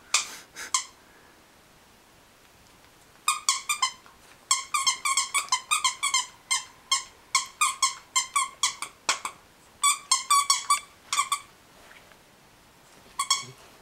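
Squeaker inside a plush toy dog squeaking again and again as a puppy bites and chews it: a few squeaks at the start, then a long run of quick squeaks lasting about eight seconds, and a couple more near the end.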